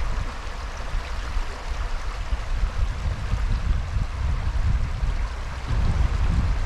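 Shallow, rocky stream running over stones in an even rush, with a low rumble of wind on the microphone that grows stronger near the end.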